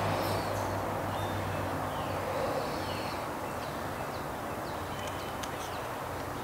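Small carving knife shaving a wooden spoon blank, light scraping cuts with a few sharp clicks about five seconds in, over a steady outdoor hiss. Short high falling bird chirps come through now and then.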